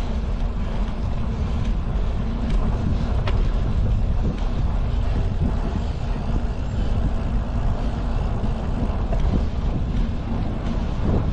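Wind buffeting the microphone of a bicycle-mounted camera while riding, a steady low rumble.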